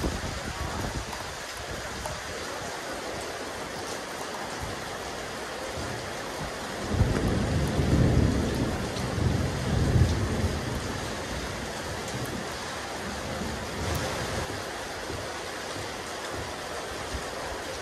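Rain falling steadily on a rooftop terrace, an even hiss. About seven seconds in, a low rumble swells and dies away over about four seconds.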